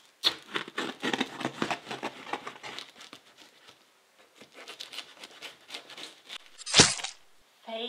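Kitchen knife slitting the packing tape along the seam of a cardboard box: dry crackling and tearing, strongest for the first three seconds, then quieter scraping, with one sharp knock near the end.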